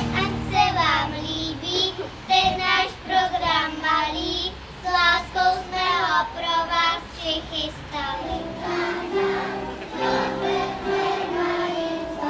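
A group of young children singing a song together as a small choir.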